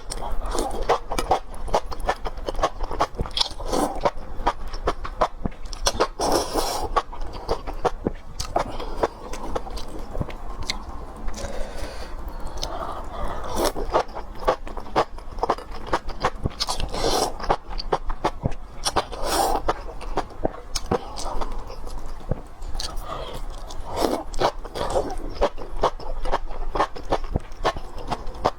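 Close-miked eating sounds of lamb being chewed and bitten: a continual run of wet mouth clicks and smacks, with short louder bursts every few seconds.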